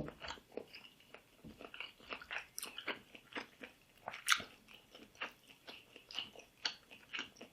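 A person chewing and biting food close to the microphone: a string of short, irregular mouth clicks and smacks, with one sharper crunch about four seconds in.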